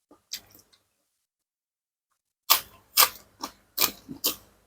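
Close-miked chewing of crunchy food. A few faint clicks come first, then about halfway through a run of sharp crunches begins, about two a second.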